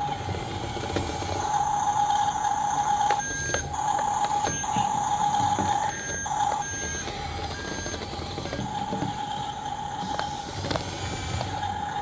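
Radio-controlled toy bulldozer's electronic sound effects: a steady high beeping tone that breaks off several times between about three and seven seconds in, with short higher beeps, over the whir of its small track motors as it drives and turns.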